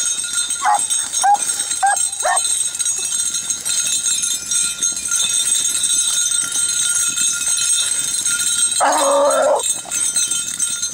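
Hunting beagles baying in the brush: a few short yelps in the first couple of seconds, then one longer bay about nine seconds in. It is the voice of hounds trailing a rabbit.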